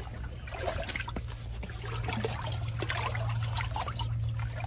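Water trickling and splashing in a shallow tide pool, with small scattered knocks and a steady low hum underneath.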